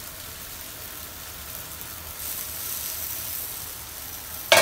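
Mushroom gravy simmering in a pan with a steady sizzling hiss, and one short sharp knock near the end.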